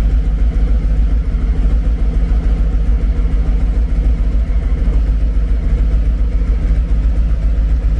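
Harley-Davidson V-twin motorcycle engine idling steadily through its exhaust, a loud low lumpy rumble with no revs.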